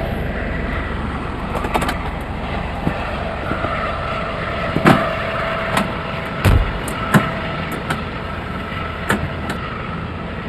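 Steady running noise of a helicopter's engine, with a faint whine held on two steady tones. Several sharp knocks and clicks sound over it, the loudest about five and six and a half seconds in.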